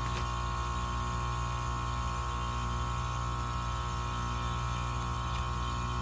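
Goodman 3.5-ton package heat pump running in its defrost cycle: a steady tonal compressor hum, with the outdoor fan stopped.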